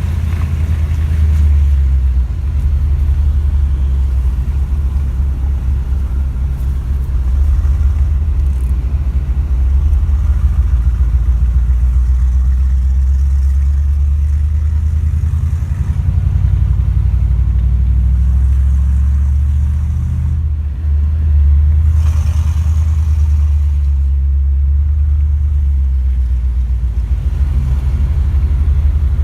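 Mercedes-Benz W126 car driving: a steady low rumble of engine and road that swells and eases with speed, with a short dip about two-thirds through.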